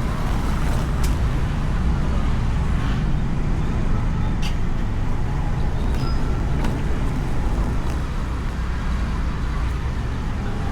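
Steady running and road noise of a Honda Beat scooter's small single-cylinder engine while riding, picked up by a camera mounted on the scooter, with surrounding traffic. A few faint, short clicks sound over it.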